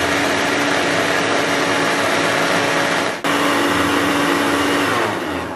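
Electric blender motor running at full speed, its small dry-mill jar grinding dry crumbs into powder: a loud, steady whirring hum. It drops out for a split second about three seconds in, then winds down near the end as it is switched off.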